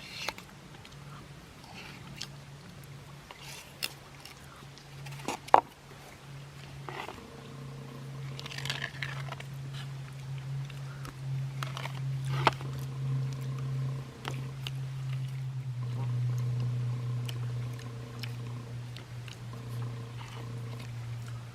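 Chewing and eating noises with scattered sharp clicks, likely cutlery, over a steady low droning hum that grows louder from about a third of the way in.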